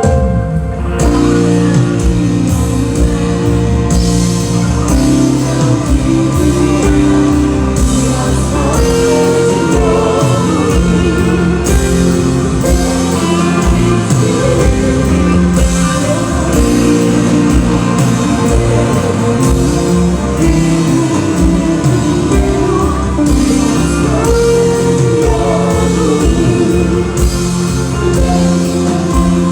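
Christian gospel band music with a steady drum beat and bass under a sustained melody.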